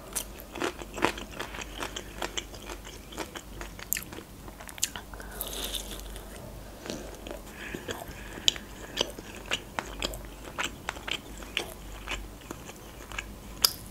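Crunchy bites and chewing of breaded fried chicken cutlets, close to the microphone: a long run of short, crisp crackles.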